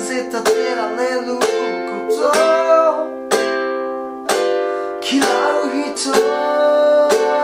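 Soprano ukulele strummed slowly, about one strum a second, through F, C and G7 chords moving to D7, with a man singing the melody over it.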